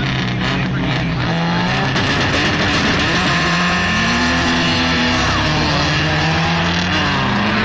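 Two performance cars, a big-turbo Subaru WRX and a gutted Nissan 240SX drift car, accelerating hard from the start, their engines revving up and down through the gears. The sound gets louder about two seconds in, and a haze of tyre noise sets in as the 240SX's rear tyres spin and smoke.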